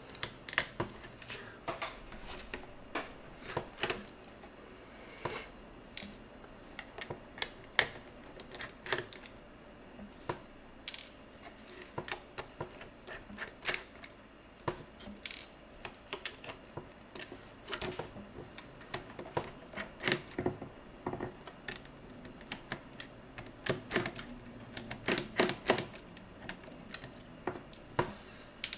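Irregular sharp clicks and taps of small hard plastic and metal parts as a slider phone is handled and taken apart.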